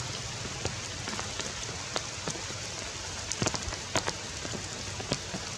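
Rain falling on forest leaves: a steady hiss with scattered sharper drops tapping here and there.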